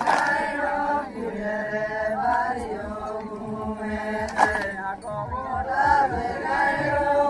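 Adivasi garba folk song: voices singing a chant-like melody over a steady drum beat, with a few sharp clicks.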